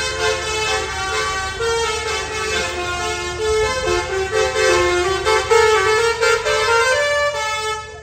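Bus telolet horn, a multi-tone air horn, playing a quick melody of changing notes. It cuts off suddenly near the end.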